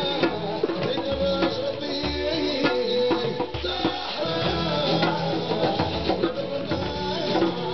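Live drumming: hand drums beating a regular rhythm with rattling percussion, under a pitched melodic line.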